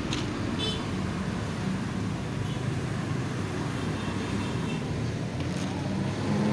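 Steady street traffic noise from motorbikes and cars running, with a brief faint high sound under a second in.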